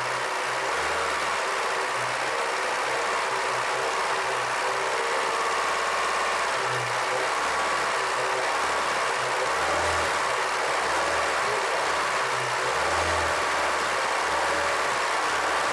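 Honda four-cylinder petrol engine running steadily at a fast idle of about 2,000 rpm, with engine bay cleaning compound in its sump instead of motor oil and the oil pressure warning light on: low oil pressure.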